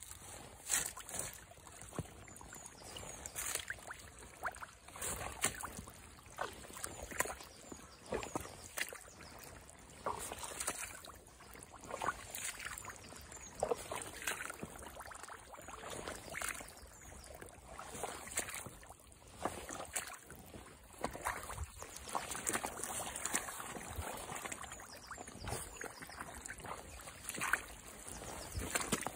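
Rubber boots squelching and splashing step after step through wet mud and shallow water.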